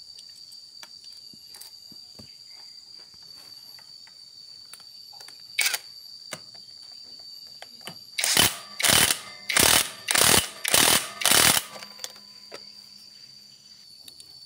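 Ratchet wrench being worked on engine bolts: one short burst of clicking, then about six quick strokes in a row a few seconds later, with light tool clicks in between.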